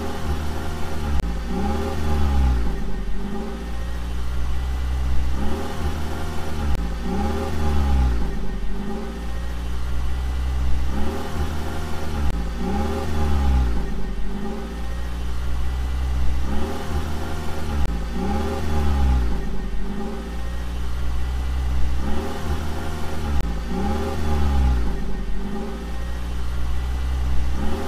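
A recorded car engine sound, revving up and down about every two seconds over a steady low drone. It is laid over the video rather than coming from the hand-pushed toy cars.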